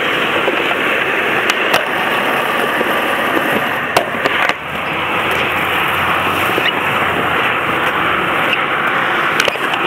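Skateboard wheels rolling steadily over concrete, close and loud, with a few sharp clicks from joints and bumps in the surface and a brief drop-off about four and a half seconds in.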